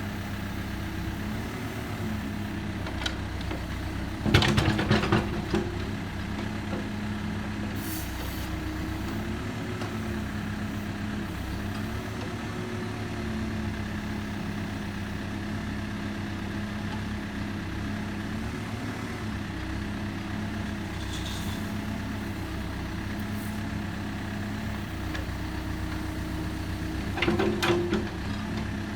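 Backhoe engine running steadily, its pitch shifting slightly up and down. Twice, once about four seconds in and again near the end, there is a short burst of loud rattling.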